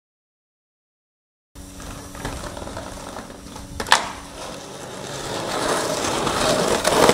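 Silence for about a second and a half, then skateboard wheels rolling on concrete. There is one sharp clack of the board about four seconds in, then a rough rolling noise along the concrete ledge that grows louder toward the end.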